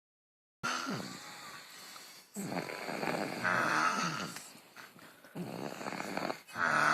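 A sleeping person snoring: several snores in a row, each one to two seconds long, after a short dead gap right at the start.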